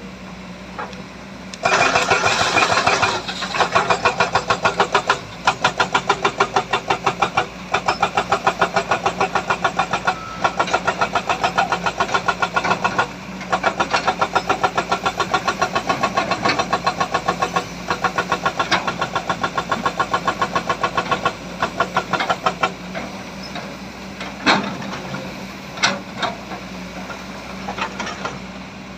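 Heavy diesel engine of working machinery running hard with a fast, pulsing rattle. It comes in runs of a few seconds with short breaks between them, over a steady low engine hum. Near the end it drops back and only a few scattered knocks are heard.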